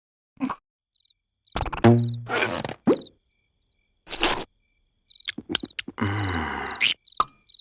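Cartoon crickets chirping faintly in a lull, broken by several short, loud noises from the animated larva characters.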